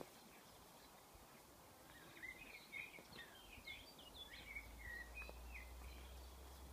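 A small bird twittering faintly outdoors, a quick string of short high chirps over quiet background noise, with a faint low rumble coming in about halfway through.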